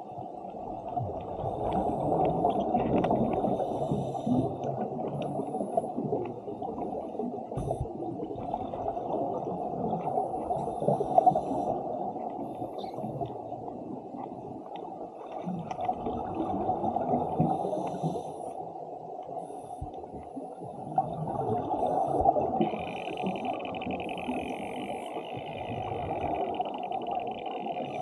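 Underwater sound of scuba divers breathing through their regulators: muffled bubbling and rumbling of exhaled air that swells every several seconds with each breath. A higher hiss joins near the end.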